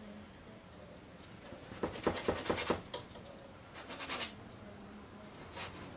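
Paintbrush scrubbing oil paint onto a stretched canvas: a quick run of scratchy strokes about two seconds in, another short burst around four seconds, and more near the end.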